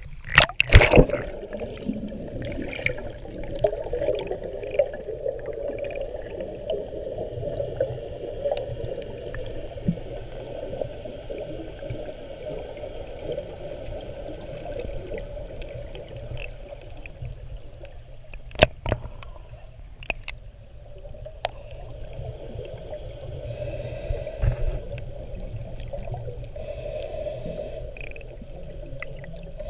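A splash as a freediver duck-dives about a second in, then the muffled rumble and hiss of water heard through an underwater camera during the descent, with a couple of sharp clicks around two-thirds of the way through.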